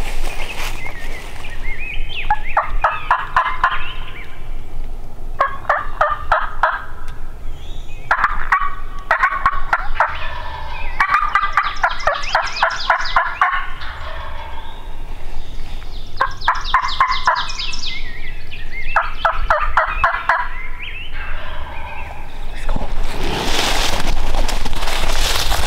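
Wild turkey tom gobbling repeatedly: about six rattling gobbles, each a second or two long, a few seconds apart. A loud rushing noise comes near the end.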